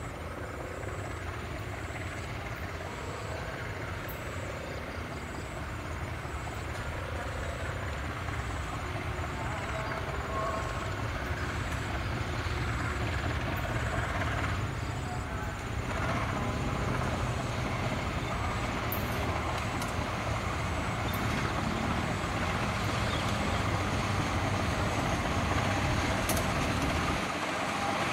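GE CC 203 diesel-electric locomotive running as it approaches at the head of a passenger train, its engine and the wheels on the rails growing steadily louder.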